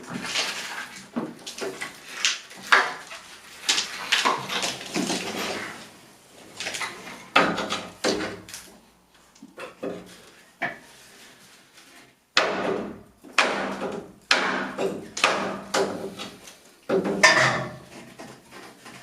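Wooden picture rail being levered off a plaster wall: irregular creaks and squeals of wood and nails pulling free, with knocks and scrapes in between.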